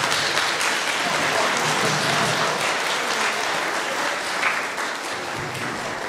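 Audience applauding steadily, easing off toward the end.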